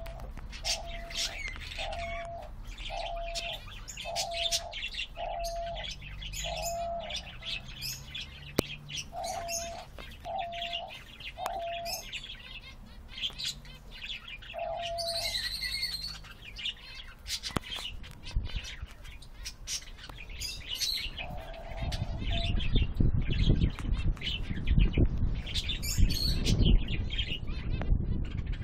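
Male diamond dove cooing in courtship: short, soft low coos repeated about once a second in runs that pause and start again, over steady high chirping from other small birds. A louder low rumble comes in near the end.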